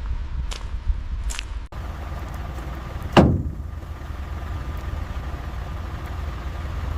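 A couple of light metallic clinks, then a vehicle engine running steadily as a low rumble. About three seconds in comes a single loud, sharp falling swoosh.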